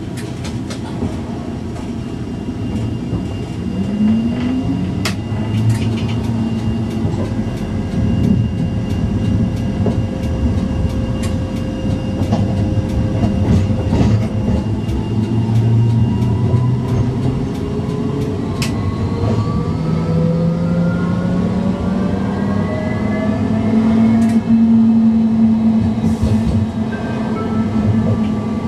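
Tram running along street track: steady rolling rumble with scattered sharp clicks. Past the middle, a whine rises steadily in pitch for several seconds and then holds.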